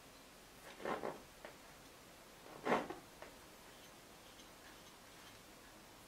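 Brush strokes of oil paint on a stretched canvas: two short strokes about two seconds apart, each followed by a faint tick.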